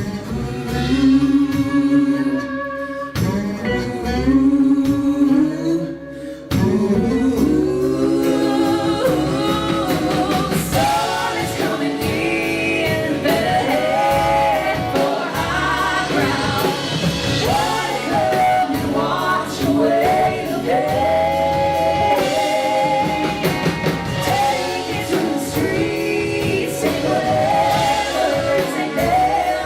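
Live band music with singing: held, wavering vocal notes over the band, softer at first, dipping briefly, then fuller and louder from about six seconds in.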